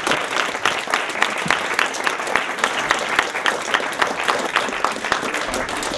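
Audience applauding, with steady dense clapping throughout.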